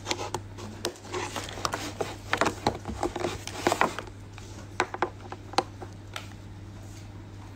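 Irregular rustling and short clicks close to the microphone, busiest in the first six seconds and thinning out near the end, over a steady low hum.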